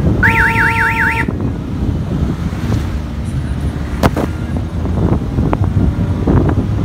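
Wind buffeting and road rumble from a moving vehicle, with a vehicle's warbling electronic horn sounding for about a second near the start. A single sharp click comes about four seconds in.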